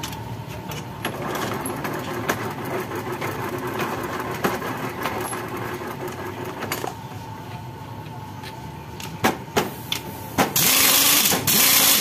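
Pneumatic impact wrench running loudly for about a second and a half near the end, loosening the scooter's CVT cover bolts. Before it there are a few scattered clicks and knocks of hand work over a steady hum.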